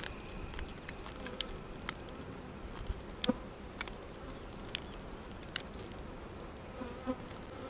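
Honey bees buzzing steadily around the hive, with a handful of sharp, irregular clicks.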